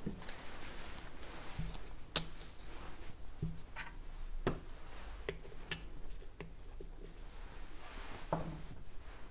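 Scattered light clicks and taps, a dozen or so at irregular intervals, over a faint steady hum.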